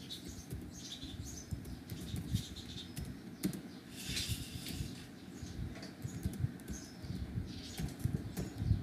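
Computer keyboard keys clicking at irregular intervals as text is typed, over faint low background noise.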